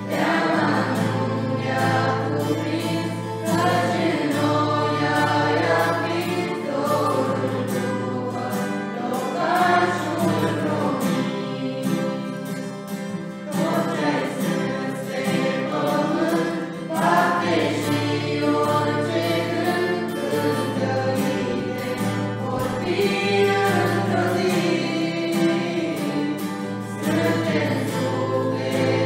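A small group of men and women singing a Christian song together, accompanied by an acoustic guitar.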